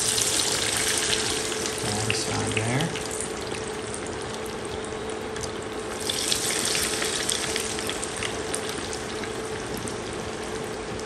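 Panko-breaded redfish fillets dropped into hot oil in a stainless pan, frying with a dense sizzling and bubbling. The sizzle flares as the first piece goes in and again about six seconds in as a second piece is lowered into the oil.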